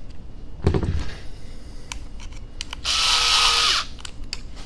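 Small electric screwdriver running briefly, for just under a second about three seconds in, driving a screw into a plastic skid plate on an RC crawler chassis. A knock about half a second in and a few light clicks of parts being handled come before it.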